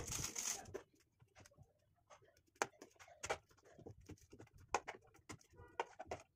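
A large metal spoon stirring instant noodles in a shallow steel pan, with scattered clicks and scrapes of spoon on pan. A loud hiss cuts off about a second in.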